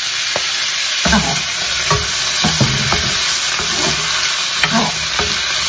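Chicken pieces and freshly added sliced vegetables sizzling in oil in a hot wok, stirred with a wooden spoon that scrapes and knocks against the pan repeatedly.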